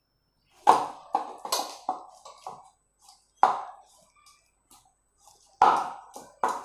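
Wheat-flour dough being kneaded by hand in a stainless steel bowl: a quick run of soft thumps and slaps as it is pressed and pushed against the bowl, then a few scattered ones.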